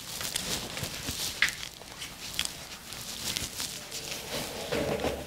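Quiet room noise: scattered small clicks and rustles, with two brief high squeaks, and a faint low murmur near the end.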